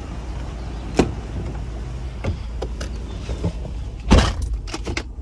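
Ford F-150 pickup's driver door: the latch clicks open about a second in, a few small knocks and clicks follow as someone climbs in, and then the door is shut with a heavy thump just after four seconds, followed by a quick run of clicks. A steady low rumble sits underneath.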